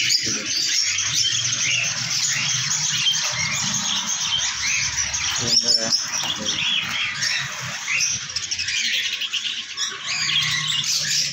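A flock of caged lovebirds chattering, with many overlapping high chirps running on without a break. There is a brief knock a little over halfway through.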